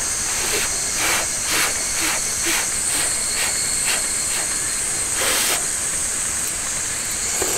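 A child slurping spaghetti noodles in a run of short sucks, about two a second, with one longer slurp about five seconds in. A steady high hiss runs underneath.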